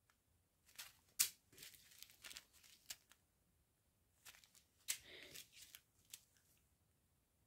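Small plastic zip-lock bags of round diamond-painting drills crinkling and rustling as they are picked up and handled, in faint short scattered bursts with one louder crackle about a second in.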